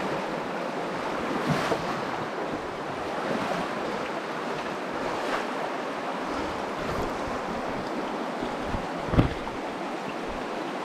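Steady rush of the shallow Virgin River flowing over rocks, with wind buffeting the microphone now and then. A single sharp thump, the loudest sound, comes about nine seconds in.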